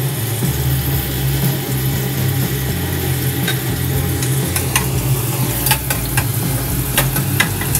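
Chopped vegetables sizzling in hot oil in a nonstick kadai, over a steady low hum. A spatula clicks and scrapes against the pan several times in the second half.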